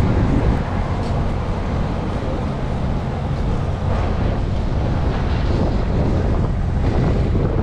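Wind buffeting the microphone, a steady low rumbling rush.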